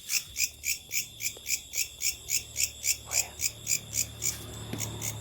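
A night insect, called a locust, calling in an even rhythmic pulse of about four to five chirps a second over a continuous high buzz. A low hum sits underneath and grows stronger near the end.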